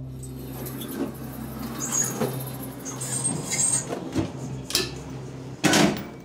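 A glass oxygen chamber's machinery clicking and squeaking over a low steady hum, with a loud clunk near the end.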